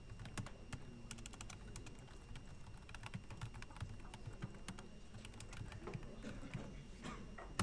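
Computer keyboard typing: quick runs of key clicks with short pauses between them, as shell commands are typed.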